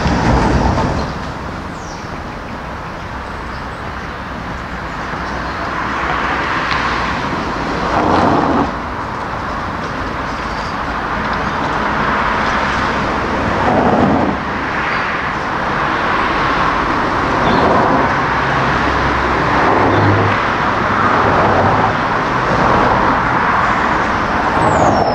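City street traffic: a steady hum of road noise with cars passing by one after another, each swelling and fading.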